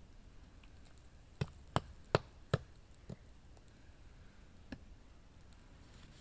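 Six sharp clicks or knocks over a low steady background: four quick ones about a second and a half in, then two more spaced out.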